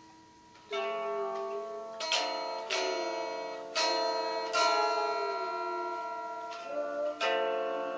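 Guitar chords struck one at a time, about seven in all starting about a second in, each left to ring and fade, with some notes bending in pitch as they ring.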